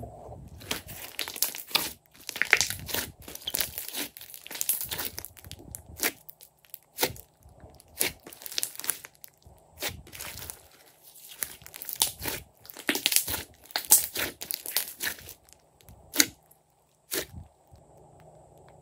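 Glossy slime being squished, folded and stretched by hand: wet crackling and popping of trapped air pockets in irregular clusters, with a few sharper single snaps near the end.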